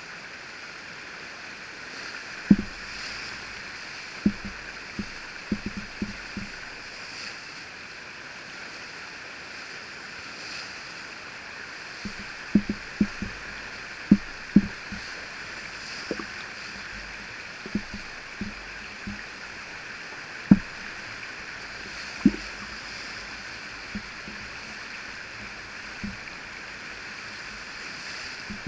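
Steady rush of whitewater from a breaking river standing wave, with short low thumps at irregular intervals, some in quick clusters.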